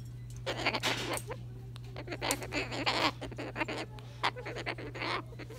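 A white cockatoo making a string of short, raspy squawks and chatter, over a steady low hum.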